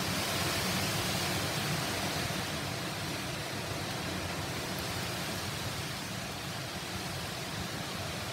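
Steady rain falling on a wet paved patio and lawn: an even hiss.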